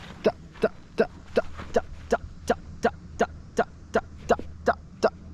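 A steady click beat keeping tempo, about 2.7 even clicks a second (roughly 160 beats a minute), over a low steady hum.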